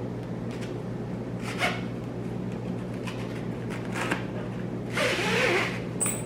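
Plastic number tags and a collar strap being handled: a few light clicks and rustles, with a louder scraping rustle about five seconds in, over a steady low hum.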